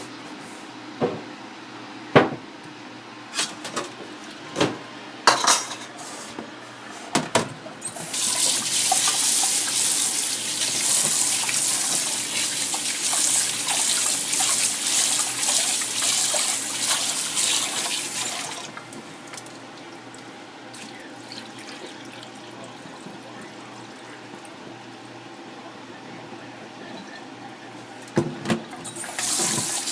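Kitchen tap running water for about ten seconds, after a string of clattering knocks from pots and utensils. More clatter comes near the end, and then the tap starts running again.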